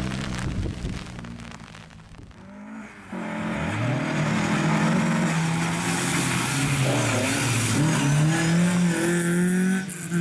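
LADA 2107 rally car's four-cylinder engine driven hard on a wet course. The note fades away at first. About three seconds in it comes back loud, rising in pitch, dipping at a gear change and climbing again, with tyres hissing on the wet surface. It cuts off abruptly near the end.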